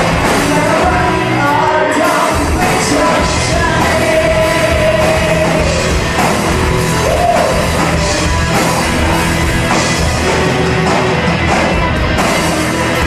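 Live rock band with a lead singer, heard loud from the audience: a sung melody over a steady drum beat.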